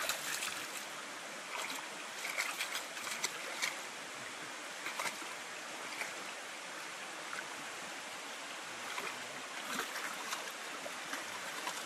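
Creek water running steadily, with irregular splashes as a Rhodesian Ridgeback wades and bounds through the shallow pool; the splashing comes in clusters, busiest a couple of seconds in and again near the end.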